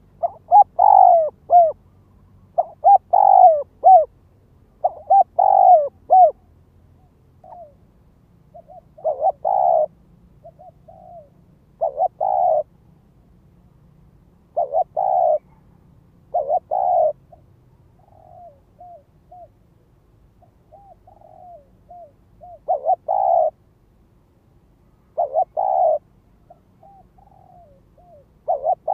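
Spotted dove cooing: repeated phrases a second or so long, with pauses of a second or two between them, and fainter, shorter coos in the gaps. It is a decoy dove's territorial call, used to provoke and lure wild doves.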